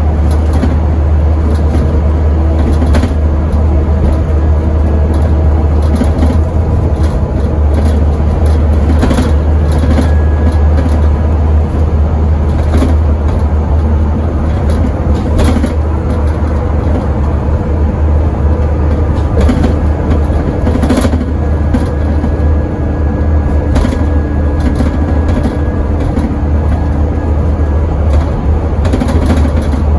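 Scania N270UD double-decker bus's engine, a 9-litre five-cylinder diesel, running steadily at speed, heard from inside the cabin as a heavy, constant low drone. Short knocks and rattles come through every few seconds.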